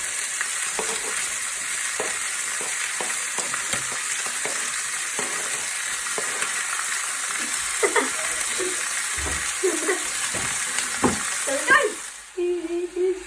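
Diced raw chicken sizzling in a hot frying pan, with scattered clicks and scrapes of a utensil stirring it. The sizzle drops away sharply near the end.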